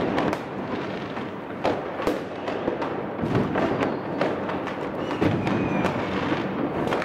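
Fireworks and firecrackers going off across the neighbourhood: many sharp bangs and pops at irregular intervals over a continuous crackling background.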